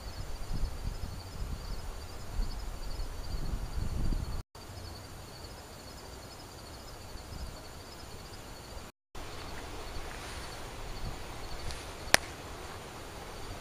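Night insects chirping in a steady, evenly pulsing rhythm over low rumbling wind buffeting the microphone. The sound drops out completely twice for a moment, and a single sharp click comes near the end.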